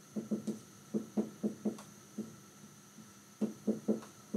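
Dry-erase marker tapping and stroking on a whiteboard while a formula is written: a string of short, light knocks in irregular clusters.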